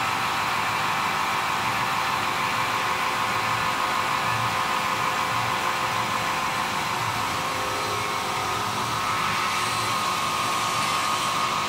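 Machinery of a PVC high-speed mixing line running: a steady whir with a constant hum, like a large fan or motor.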